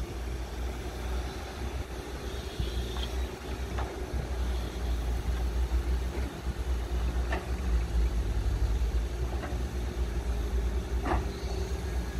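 Diesel engines of Volvo and Caterpillar crawler excavators running under load while digging, a low rumble with a steady hum that grows louder about halfway through. A few short knocks are scattered through it.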